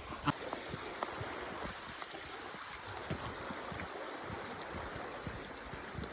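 Steady rushing of a stream flowing over stones, with scattered footsteps on a woodland path.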